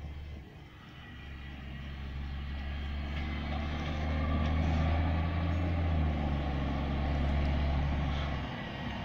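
Recycling garbage truck's engine running as the truck drives up the street towards the listener, a low hum growing louder over the first few seconds, then dropping off shortly before the end.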